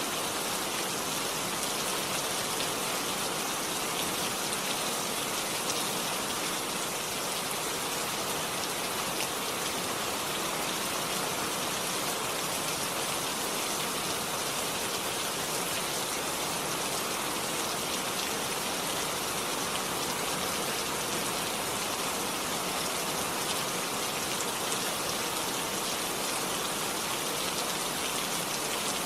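Steady, even rainfall, a constant hiss of rain with no pauses or changes.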